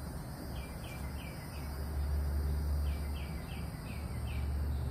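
A bird chirping in two quick runs of short, high, falling notes over a steady low hum.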